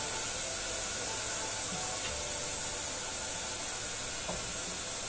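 Onions and tomato puree sizzling in a pot on the stove, a steady hiss.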